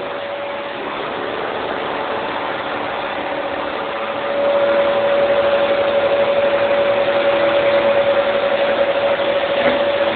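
Vacuum cleaner running steadily, its motor giving one held tone over a rushing hum that gets louder about four seconds in.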